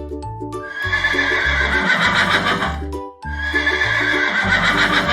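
A horse neighing twice, each whinny lasting about two seconds with a short break between, over background music.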